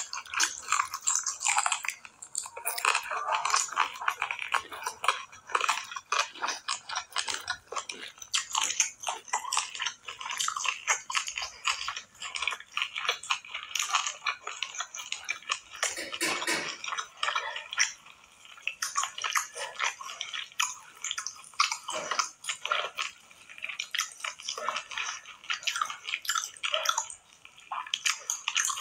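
Eating sounds of rice and mutton curry being mixed by hand and chewed: a dense, steady run of small wet clicks and smacks.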